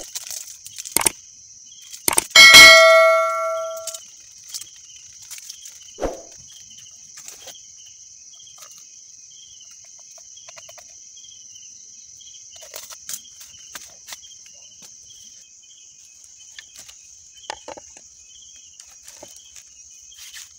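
A metal spoon strikes a stainless steel saucepan, giving one loud ringing clang about two and a half seconds in, with a few smaller clinks and knocks from the spoon working in the pot. A steady high chirring of night insects runs underneath.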